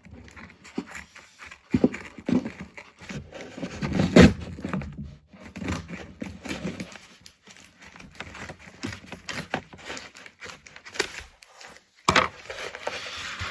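A shipping package being torn open and handled by hand: irregular tearing, rustling and crinkling of packaging with scattered small knocks, pausing briefly near the end before starting up again.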